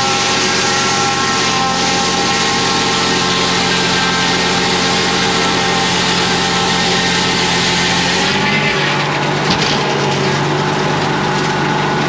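Large circular sawmill blade ripping a log lengthwise, a loud, dense cutting noise over an engine running steadily. The cut changes character about eight and a half seconds in, as the log nears the end of its pass.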